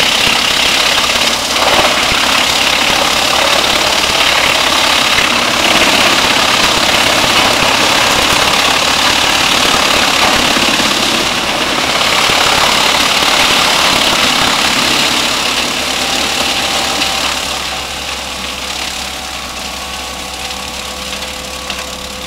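Diesel-driven Musmax wood chipper chipping brushwood and branches: a loud, dense grinding noise over the engine's steady drone. About seventeen seconds in it grows quieter and the engine's steady tones come through more plainly.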